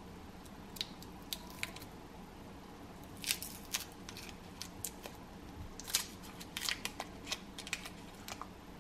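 Foil wrapper of a stock cube crinkling as fingers peel it open and crumble the cube, heard as scattered, irregular sharp crackles.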